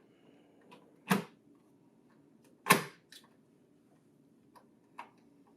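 Hard plastic clicks and knocks as a convenience stapler is fitted onto a laser printer: two louder clicks about a second and a half apart, with a few faint ticks between and after them.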